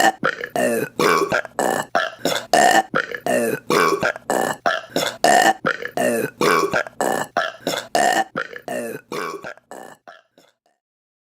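A rapid run of short women's burps, about three a second in a repeating, edited-together pattern, fading out about ten seconds in.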